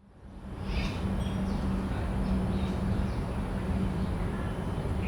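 Park ambience fading in over the first second: a steady low hum over background noise, with a few short bird chirps and the thin, steady high buzz of distant cicadas.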